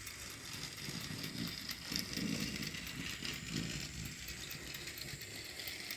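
Battery-powered toy train running on plastic track: a steady small-motor and gear whir with light, rapid clicking.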